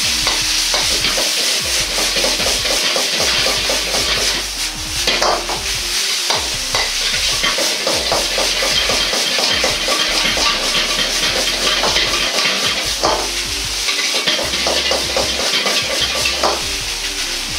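Rice stir-fried in ketchup sauce in a wok: steady sizzling, with a metal ladle scraping and knocking against the wok at irregular moments as the rice is tossed and pressed.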